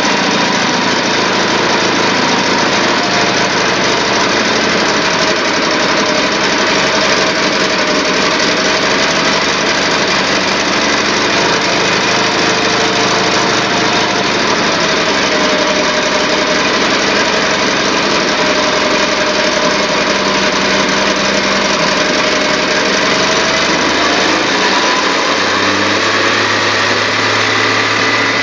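Chevrolet 4.1-litre straight-six engine running steadily on producer gas from a wood gasifier, its pitch wavering slightly up and down as the gas mix is adjusted. A deeper note joins about three seconds before the end.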